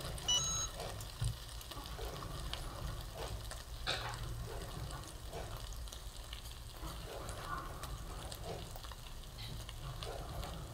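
Chicken sizzling and crackling faintly under a closed Cricut EasyPress heat press at about 400°F. A short electronic beep from the press sounds about half a second in.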